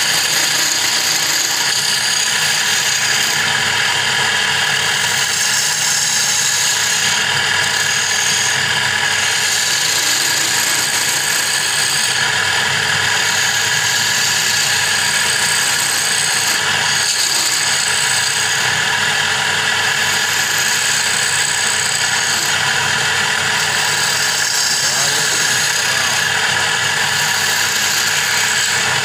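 Wood lathe running steadily while a hand-held turning tool cuts the spinning wooden blank, a continuous scraping hiss of the cut over the machine's running noise.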